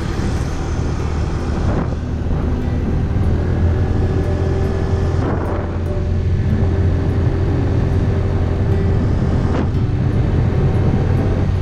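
Motorbike engine running steadily at cruising speed, heard from on board the moving bike.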